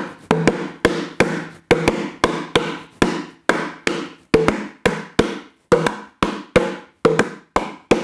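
Solo hand percussion played in a steady rhythm: sharp, ringing strikes with a low pitched body, two to three a second.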